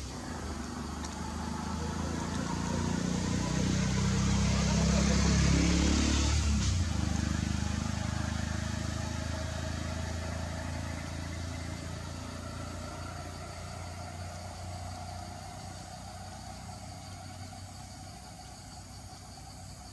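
A motor vehicle passing by: its engine grows louder to a peak about five or six seconds in, drops in pitch as it passes, then fades away slowly.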